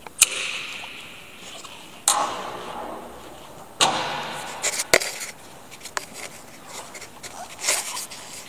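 Hard plastic clunks and knocks from an electric pallet truck's battery compartment: the battery plug clacked home and the battery cover handled and shut. There are four sharp knocks, two of them followed by about a second of fading rush, then a few lighter clicks.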